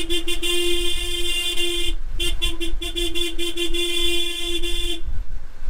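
A vehicle horn sounding one long held blast, broken briefly about two seconds in and cutting off about five seconds in, over the low rumble of truck and tractor engines.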